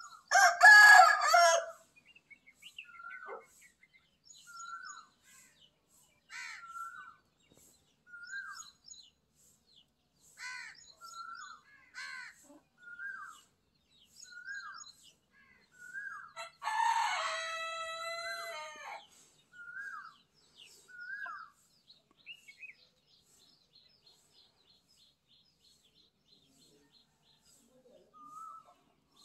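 White rooster crowing: a loud crow right at the start and a long one about 17 seconds in that falls away at the end. Between them a bird keeps up short repeated chirps, roughly one a second.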